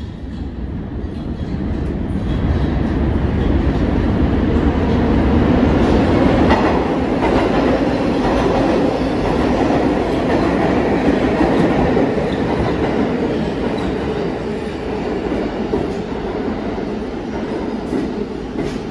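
New York City subway trains running through the station: a train passing on the far track and a 6 train pulling in along the platform, steel wheels rumbling and clacking. The rumble builds over the first few seconds and eases toward the end.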